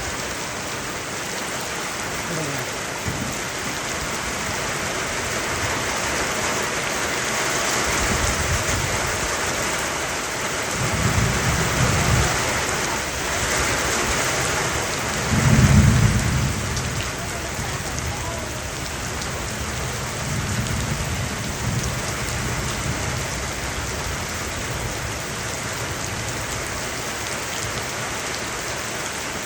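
Heavy tropical downpour, a steady dense hiss of rain. Low thunder rumbles roll in about a quarter of the way through, and the loudest comes a little past halfway.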